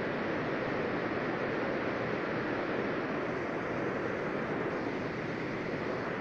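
Heavy rain pouring steadily onto paved ground and puddles, an even, unbroken rush.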